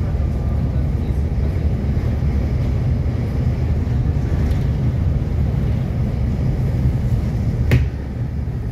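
Volvo B7TL double-decker bus cruising on a dual carriageway, heard from inside on the upper deck: a steady low rumble of its six-cylinder diesel engine and road noise. One sharp click near the end.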